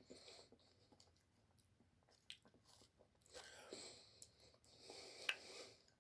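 Faint wet chewing of sticky, stringy natto (fermented soybeans), with small mouth clicks and smacks.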